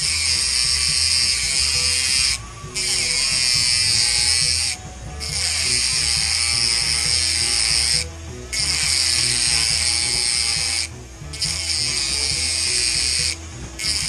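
Small battery rotary tool with a thin cutting disc grinding through a metal ring, a steady high-pitched grinding in runs of two to three seconds, broken by a short pause about every two and a half seconds as the disc is lifted off the metal.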